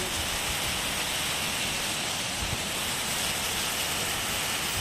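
Heavy monsoon rain pouring down on a street and rooftops, a steady even hiss.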